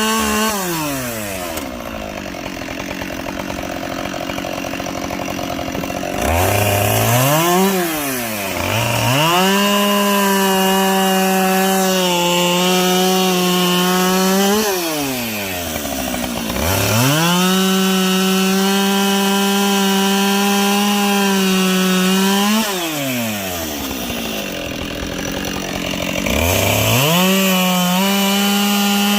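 Two-stroke chainsaw bucking logs. It runs at full throttle through three cuts, each lasting several seconds, and drops back to idle between them. A quick rev blip comes before the second cut.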